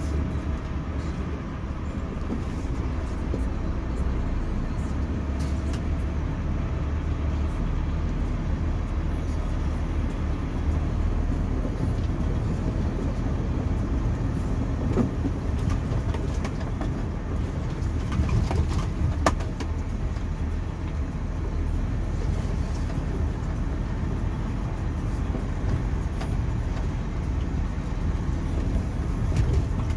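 Volvo lorry's diesel engine running as the truck rolls slowly over gravel, heard from inside the cab as a steady low rumble, with a few knocks and rattles around the middle.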